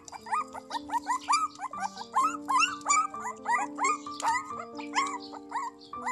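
Puppies whimpering and squealing in short, rising cries, several a second, as they crowd and shove at a shared tray of rice. Background music with long held notes plays underneath.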